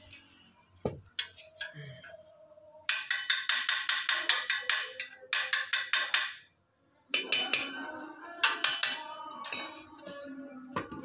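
Rapid runs of knocking on a Butterfly 'api 1000' multi-jet gas stove as it is tapped and banged to shake out dirt clogging the burner, with some metallic ringing. The knocks come in quick bursts from about three seconds in, pause briefly, then go on more unevenly.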